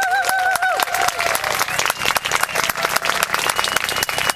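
Crowd of spectators applauding, with one high voice calling out briefly at the start.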